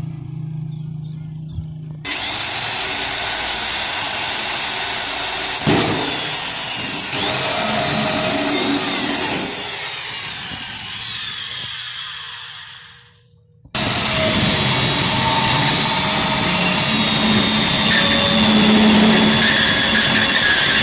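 Electric drill with a hole saw cutting a round lock hole through a metal gate pipe. It starts up about two seconds in, slows and stops shortly after the middle, then starts again at once and keeps cutting.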